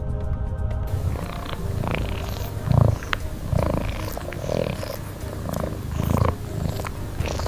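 A cat purring close up: a steady low rumble with soft, regular pulses.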